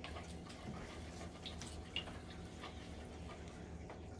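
Spoons stirring wet slime mixture in mixing bowls: scattered faint clicks and small wet squishes over a steady low hum.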